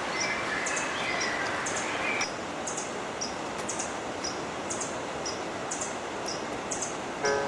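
Steady rush of flowing river water with short, high-pitched bird chirps repeating about once or twice a second. A few held tones fade out about two seconds in, and music comes back in near the end.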